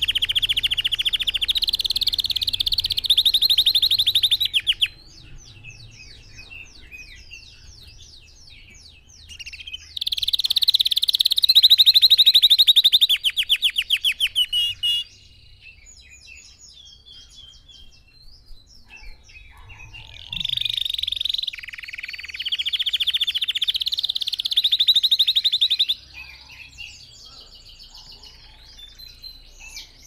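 Red factor canary singing: long, loud phrases of fast rolling trills, four or five seconds each, with quieter scattered twittering in the gaps between them.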